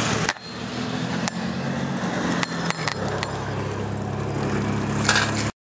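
Bicycle rolling along a paved trail, heard from a handlebar-mounted camera: steady tyre and wind noise with a low hum and a few sharp rattling clicks in the middle, cutting off abruptly near the end.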